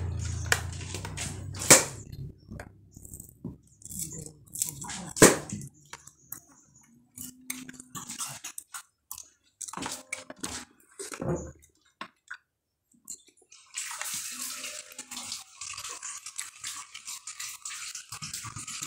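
Scattered clicks and clatters of kitchen handling, two of them sharp and loud, then, from about 14 seconds in, a steady sizzle of food frying in hot oil.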